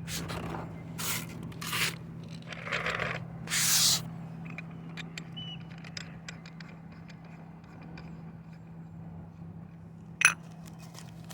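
Scraping and clattering from handling a small ceramic tea set, four or five short scrapes in the first few seconds, then light ticks and one sharp ringing clink near the end, over a steady low hum.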